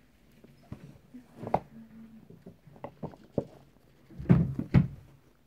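Pencil writing on a notebook page, with scattered short taps and knocks. The two loudest thumps come about half a second apart near the end.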